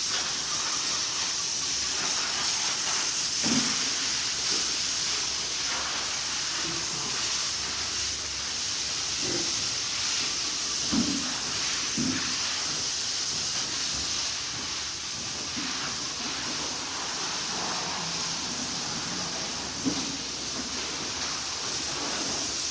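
Steady hissing water jet from a hose spraying hard across the cattle-shed floor, washing dung toward the drain.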